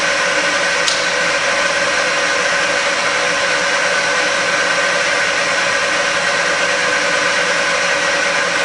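Bridgeport milling machine's variable-speed head running steadily, the spindle turning while the quill power feed drives in reverse: an even mechanical hum with a steady whine over it. A light click about a second in.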